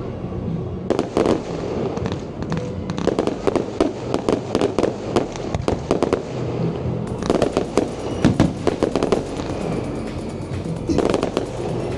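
Fireworks display: clusters of rapid bangs and crackling shell bursts, coming in waves a few seconds apart, with music playing underneath.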